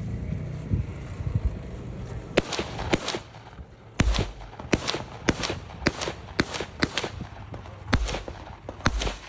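Polish Tantal 5.45×39 mm rifle firing a string of single shots, about two a second, beginning a couple of seconds in after a low rumble.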